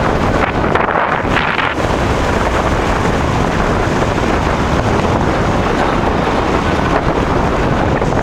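Rough, storm-driven sea surging, with strong wind buffeting the microphone in a loud, steady roar.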